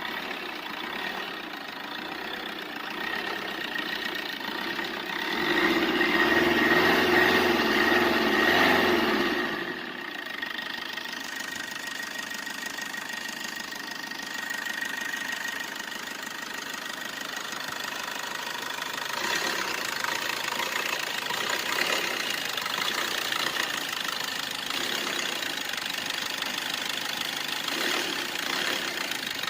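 Car engine running at idle, revving up louder for about four seconds starting some five seconds in, then settling back to a steady idle.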